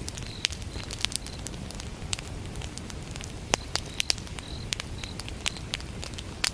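Wood fire burning with a steady low rumble and irregular sharp crackles and pops, a few louder ones standing out. A cricket chirps in short, even trills near the start and again in the middle.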